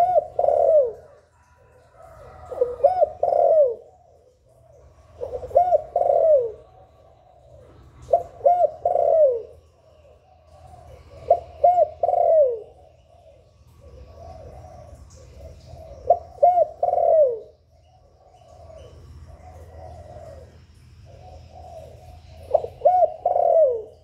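Spotted dove cooing: a phrase of a few low coos repeated about every three seconds, with softer phrases in the middle stretch.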